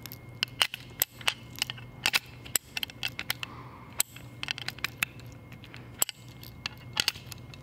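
Irregular metal clicks and taps of a brass air-hose quick-connect coupler being pushed and worked against a Tornador gun's air plug, over a steady low hum. The coupler does not lock because the plug is the wrong style for it.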